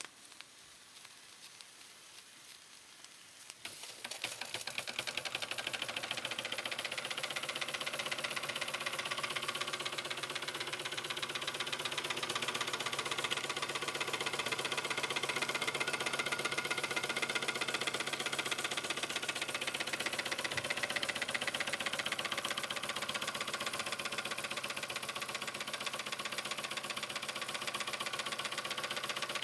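Märklin 1904 compound live-steam toy traction engine starting up about four seconds in, after its start-stop lever is worked, then running fast and steadily with a rapid, even ticking clatter.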